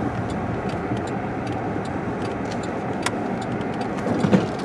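Steady car engine and tyre noise heard from inside the cabin while driving on a snowy road, with faint irregular ticks and one sharper click about three seconds in.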